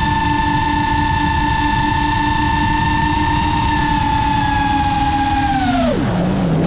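GEPRC Mark 5 FPV quadcopter's brushless motors and propellers whining at a steady high pitch, over wind rush on the onboard microphone. Near the end the pitch drops sharply as the throttle is cut.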